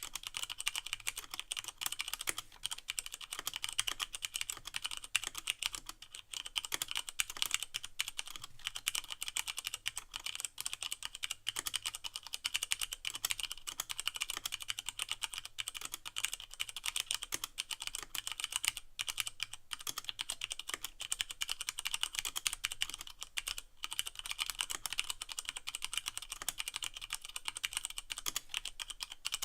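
Steady fast typing on a Leopold FC660M mechanical keyboard with Cherry MX Brown switches and no O-rings, so each keycap bottoms out plastic on plastic. The keys clack quickly and continuously, with no pause.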